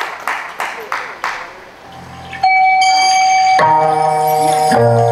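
Sharp hits in a steady rhythm, about three a second, fade out over the first second and a half. About two and a half seconds in, recorded backing music for a trot song starts suddenly with one held keyboard tone, and full chords come in a second later.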